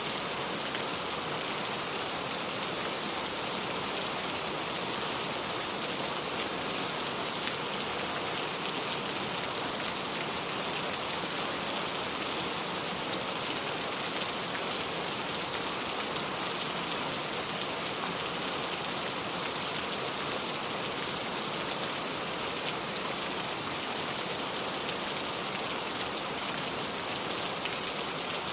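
Heavy rain pouring steadily, a dense even hiss of drops on a surface.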